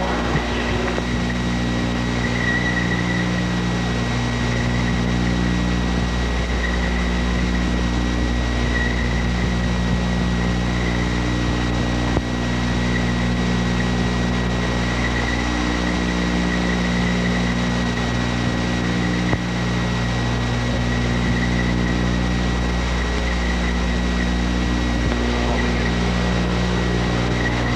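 A steady low electrical-sounding hum with a thin high whine above it, unchanging throughout.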